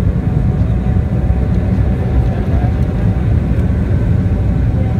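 Steady cabin noise of a CRJ900 jet airliner descending on approach: a dense low rumble of airflow and engines with a faint steady whine above it.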